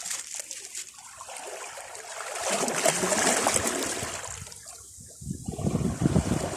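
Seawater washing over shoreline rocks: a surge swells about two and a half seconds in and drains away, and another starts near the end.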